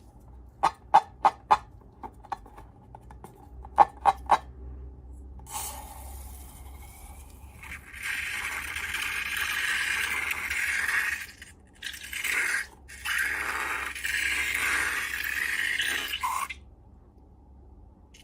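Slime being handled. First two quick runs of sharp clicks, then a long crackling, scraping sound that breaks off briefly a few times and stops shortly before the end.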